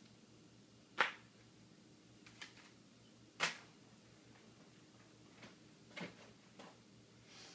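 A handful of sharp clicks and taps from a person handling a sheet of paper and objects on a table. The two loudest come about a second and three and a half seconds in, with fainter ones near the end.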